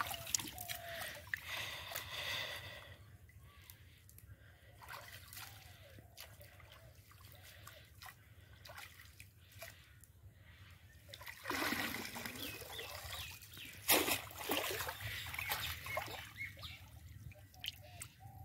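Water splashing and trickling in irregular bouts as fish are handled in a water-filled bucket and a cast net is drawn out of shallow water. The splashes are busiest in the first few seconds, sparse in the middle, and loudest about twelve and fourteen seconds in.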